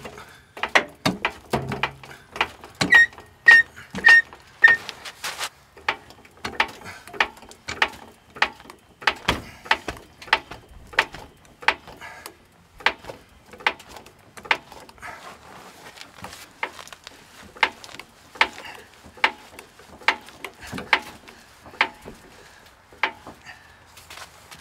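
Badland 3-ton dual-piston off-road floor jack being pumped by its long handle to lift a pickup by the frame: a mechanical click on each pump stroke, about one to two a second. A few short ringing metallic pings come a few seconds in.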